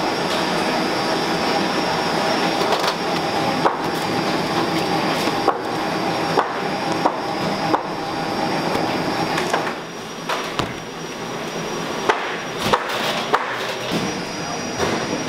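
Steady hum of factory kitchen machinery, with scattered sharp clicks and knocks of a plastic scraper working paste out of a stainless-steel mixing bowl.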